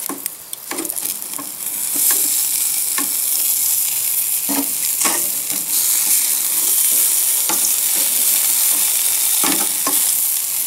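Bacon-wrapped chicken breasts sizzling on a hot charcoal grill grate as they are turned with metal tongs. The sizzle grows louder about two seconds in, with scattered sharp clicks of the tongs against the grate.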